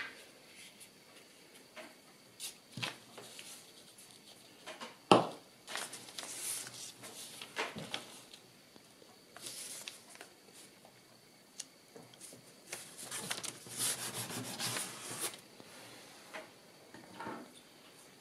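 Kraft paper being handled and rubbed flat along its creases on a cutting mat: dry rustling and rubbing in several stretches, with scattered light knocks, the sharpest about five seconds in.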